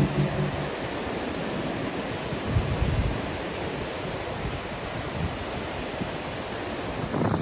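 Steady rush of ocean surf mixed with wind, an even noise with no distinct events.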